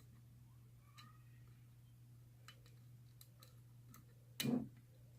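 Faint, scattered ticks and clicks of a lock pick and tension wrench working in the keyway of a discus padlock, over a steady low hum. A short louder sound comes about four and a half seconds in.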